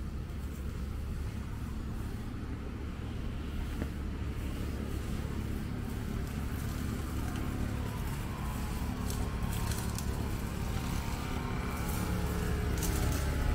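A motor vehicle's engine running, its pitched drone coming in about halfway and growing louder towards the end.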